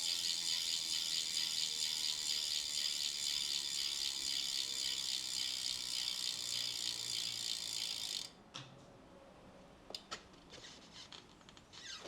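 Bicycle rear freehub on a Canyon Inflite CF SLX, on wheels the owner thinks are DT Swiss 1400s, freewheeling with a fast, steady ratcheting buzz. It cuts off abruptly about eight seconds in, followed by a few scattered clicks.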